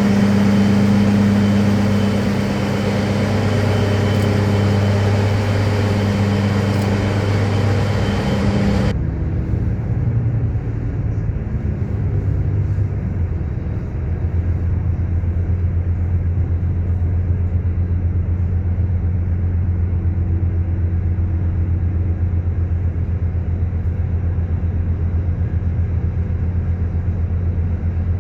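Diesel rail vehicle engines running steadily, in two recordings with a hard cut about nine seconds in. The second is a low, evenly pulsing idle.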